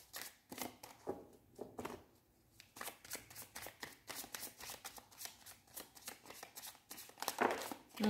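A deck of tarot cards being shuffled by hand: a quick, irregular patter of cards flicking and slapping against each other.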